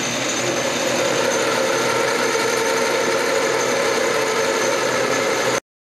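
Craftsman Commercial metal lathe running steadily, its motor and gear train giving a constant machine whine. The sound cuts off abruptly near the end.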